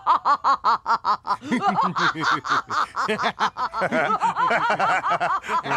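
An old woman's cackling laugh in rapid, even bursts. Partway through, several men join in laughing along.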